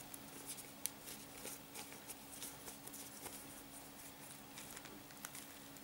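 Faint, scattered light crackles and ticks of a thin water-soluble PVA bag being handled and opened by hand, over a faint steady low hum.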